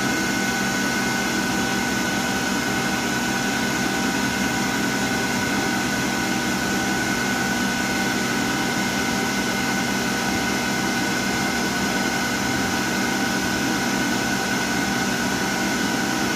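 CNC lathe running with its spindle turning the chuck and bar stock: a steady machine hum with several steady whining tones.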